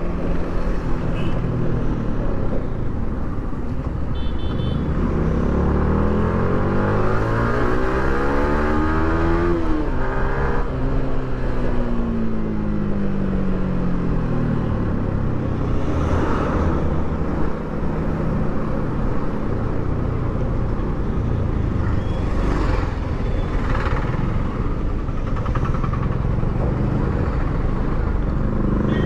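Yamaha R15 V3's 155 cc single-cylinder engine through its stock exhaust, heard while riding over road and wind noise. About four seconds in, the engine note climbs steadily for some six seconds, drops sharply and slides back down over the next few seconds, then settles into steady cruising.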